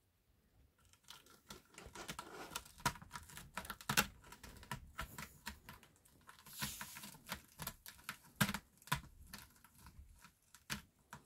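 A kitten's claws scratching at a cactus: quick, irregular scratches and ticks that start about a second in and keep going, with a few louder strokes.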